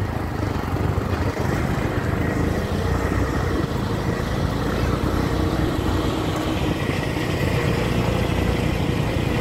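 Small engine of a three-wheeled auto-rickshaw running steadily under way, heard from inside the open cab, with the tyres running over a rough gravel road.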